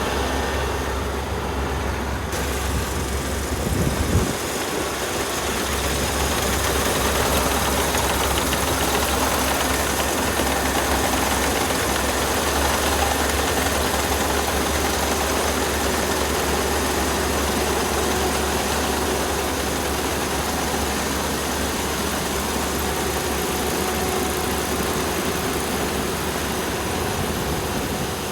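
Kubota rice combine harvester running steadily with its engine droning and machinery rumbling, with a short thump about four seconds in.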